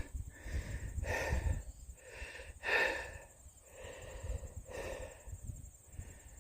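A hiker breathing hard from a steep uphill climb, heavy breaths in and out every second or two.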